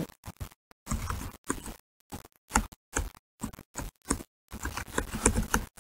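Computer keyboard typing: an irregular run of key clicks and taps, two or three a second.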